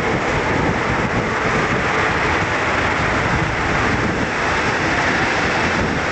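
Steady wind buffeting the microphone on a ferry's open deck, over a continuous rumble and hiss from the ship's machinery.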